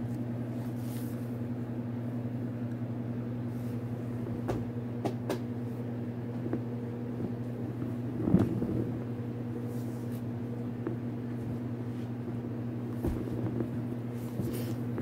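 Steady low electrical hum, with scattered light knocks and rustles as hardcover books are handled and swapped, and a louder thump about eight seconds in.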